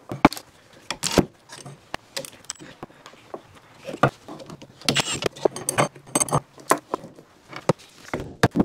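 Irregular metallic clinks, clatter and sharp knocks of hand tools and steel bolts while a vintage Wagner electric motor is unbolted and taken apart, some clinks ringing briefly. A hard knock near the end fits a hammer tapping the motor's end bell loose.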